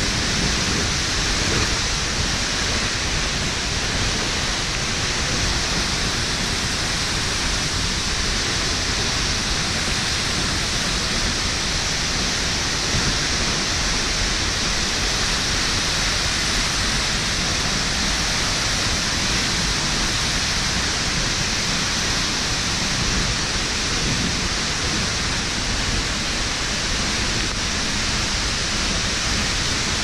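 Seljalandsfoss waterfall pouring close by: a steady, even hiss of falling water and spray, with a low rumble underneath.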